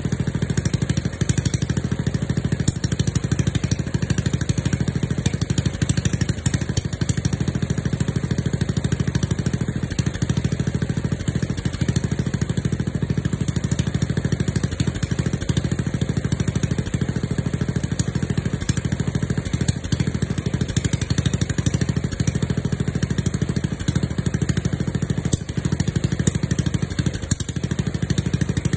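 Small gasoline engine on a walk-behind two-wheel tractor, straight-piped through a 2.5 to 3-inch pipe into a 6-inch exhaust tip, idling steadily as it warms up after a cold start.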